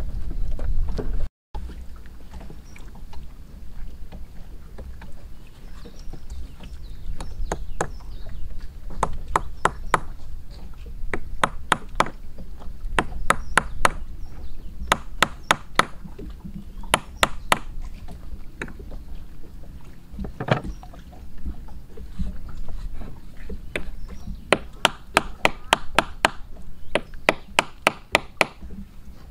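Cleaver blade knocking sharply against a small stick of wood, chopping at it in quick runs of light taps. A low steady rumble runs underneath.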